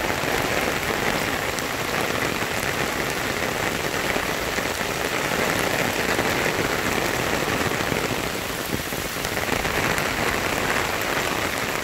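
Heavy rain falling steadily: a dense, even hiss with scattered drop ticks.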